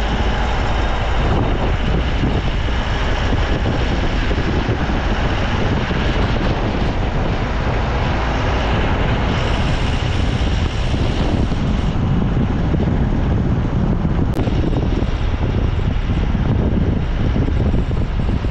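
Steady road and engine noise from a moving vehicle, with wind rumbling on the microphone.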